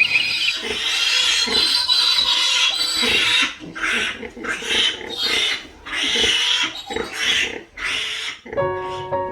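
An animal giving harsh, noisy cries: one continuous stretch at first, then separate cries about every half second.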